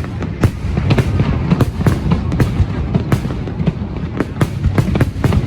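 Fireworks bursting in quick, irregular succession, several sharp bangs and cracks a second, loud and continuous.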